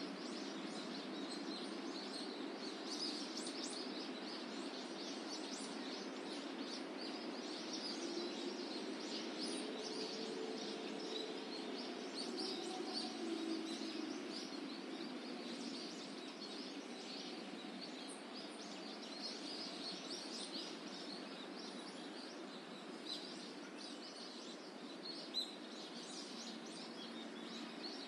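Outdoor park ambience: a steady background hiss with many small birds chirping on and off throughout, and one short sharp tick near the end.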